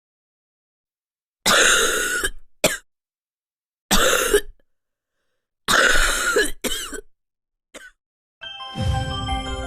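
A person coughing several times, long, heavy coughs with a couple of short ones after them, as in a wet, productive cough. A music jingle starts near the end.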